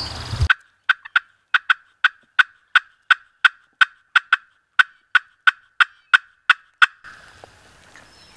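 Wild turkey clucks: a steady string of short, sharp notes, about three a second, that stops about a second before the end.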